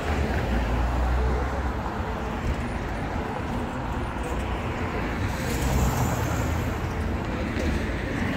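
City street traffic: vehicle engines running close by with a deep, steady rumble over continuous road noise.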